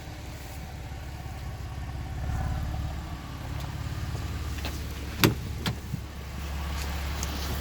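Saab 9-3 Turbo X's turbocharged 2.8-litre V6 idling steadily during a Seafoam treatment, run to check for an exhaust leak. A few sharp clicks come a little after halfway.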